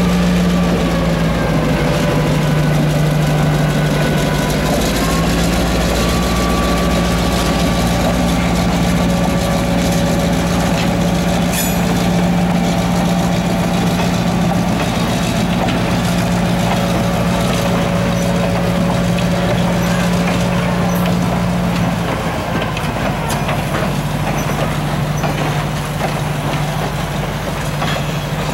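Diesel switcher locomotive's engine running with a steady low drone as it moves a train slowly past, its pitch stepping down and back up a few times, and dropping a little when the cars behind it pass.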